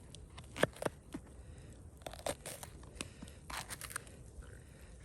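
Irregular crinkling, crunching and clicking from vegetables and their packaging being handled during camp cooking, with the sharpest click just over half a second in.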